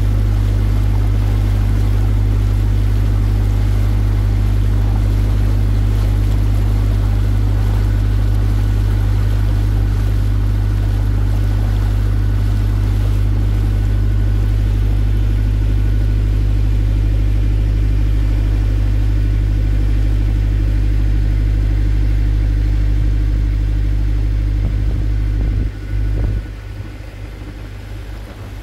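The water taxi's engine running steadily as the boat cruises, a loud low drone. It drops in level about three seconds before the end.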